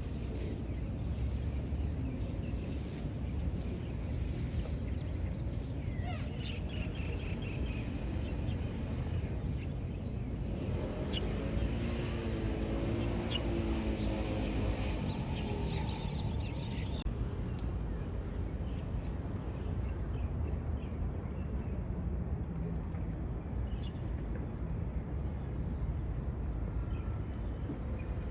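Outdoor ambience of a steady low rumble with faint, scattered bird chirps. For a few seconds around the middle, a wavering pitched sound rises above it and then fades.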